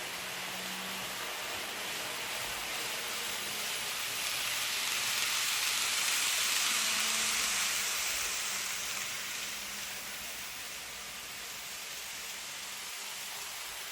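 N gauge model train running on the layout track, a steady whirring hiss of wheels and motor. It swells as the train passes close, about halfway through, then fades again.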